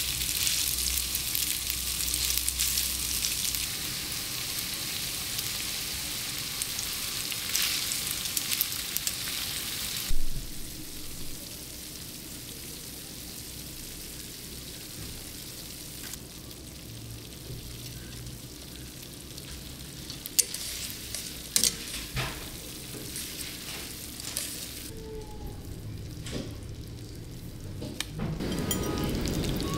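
Spaghetti and broccoli sizzling in an enamelled cast-iron skillet on a gas burner while being tossed with metal tongs. About ten seconds in the sizzle drops to a quieter hiss, with a few sharp clicks later on.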